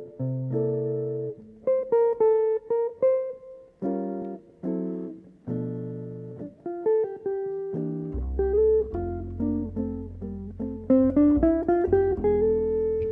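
Jazz electric guitar playing a slow ballad in chords, with a double bass coming in on low held notes about eight seconds in.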